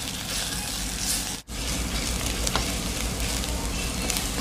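Shallots, onion, curry leaves and dried red chillies frying in oil in a nonstick pan with chilli powder, a steady sizzle as a spatula stirs them, with a few light ticks of the spatula on the pan. The sound drops out for an instant about a second and a half in.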